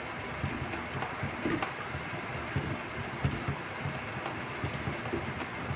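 Small irregular clicks and knocks of a plastic action-camera chin mount being handled and fitted on a motorcycle helmet, over a steady background hiss.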